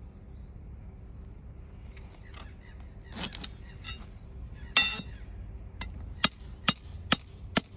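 Claw hammer striking a ribbed steel pin to drive it down through a plastic drainage cell into hard ground. There is a first knock about three seconds in and a loud ringing metallic clang just before five seconds. A run of five sharp blows follows, about two a second.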